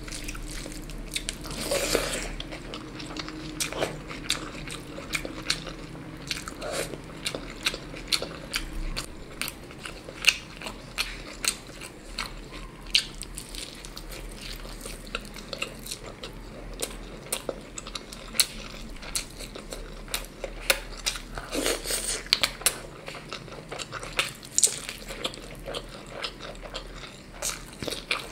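Close-miked eating: a person biting and chewing food, with irregular sharp crunches and wet mouth clicks.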